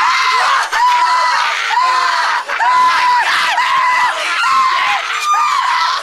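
A young man screaming, a string of short, loud yells each held on one high pitch.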